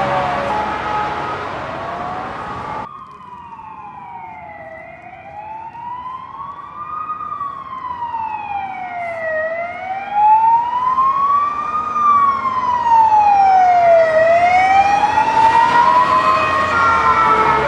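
Ambulance siren. For the first few seconds several overlapping siren tones sound over road noise. Then the sound cuts abruptly to a single slow wail that rises and falls about every two and a half seconds and grows louder, with road noise returning near the end.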